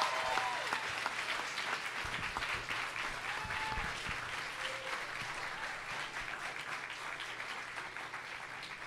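Comedy-club audience applauding, the clapping slowly fading away.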